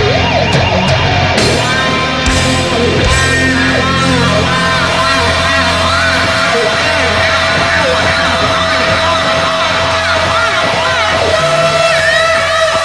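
Heavy metal band playing live through a large outdoor sound system, with one long note held from about two seconds in until near the end. A crowd is yelling over it.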